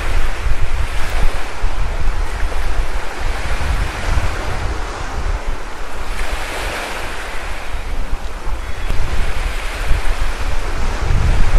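Wind blowing across the microphone: a steady rushing with uneven low rumbling buffets, a little stronger near the end.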